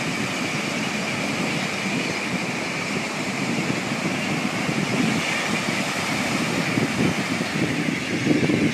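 Ocean surf breaking and washing up a sandy beach: a steady rush of waves, a little louder in the second half.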